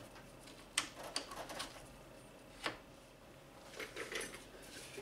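Light plastic clicks and taps from a spill-free coolant funnel being handled and fitted onto a radiator filler neck: three close together about a second in, one a little before the middle, and a short cluster near the end.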